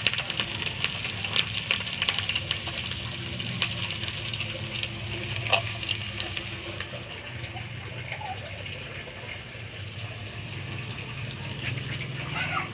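A pot of liquid bubbling over a wood fire: a steady watery hiss with small scattered crackles.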